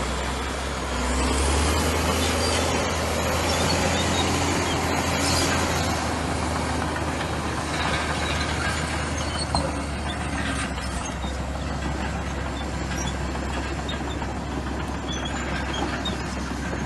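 Komatsu bulldozer's diesel engine running steadily under work, with mechanical clatter over it and one brief sharp knock about ten seconds in.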